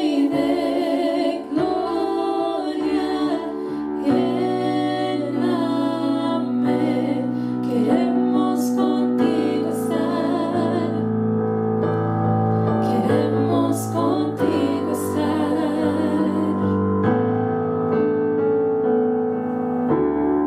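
Three women singing a worship song into microphones over piano-keyboard accompaniment; the voices stop about three-quarters of the way through while the keyboard chords carry on.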